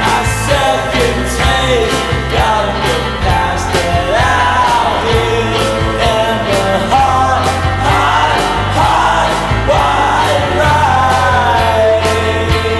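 Rock song playing, with a singer's voice over a steady bass and a regular drum beat.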